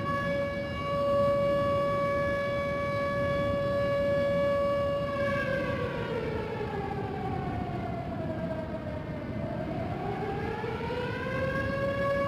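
Outdoor tornado warning siren sounding a steady tone, which sags in pitch about halfway through and climbs back to full pitch near the end. A steady rushing noise runs underneath.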